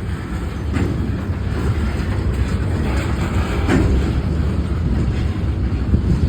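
CSX local freight train rolling past, its cars making a steady low rumble with occasional clunks of wheels over the rail.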